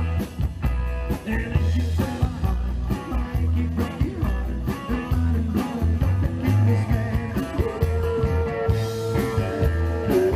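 Live rockabilly band playing: slapped upright bass and electric guitars over a steady beat, with a singer, and a long held note near the end.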